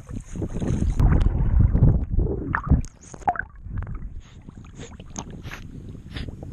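Choppy water sloshing and splashing over a waterproof action camera held at the surface, loud and rumbling for the first three seconds, with gurgling as water washes over the lens, then scattered small splashes and drips.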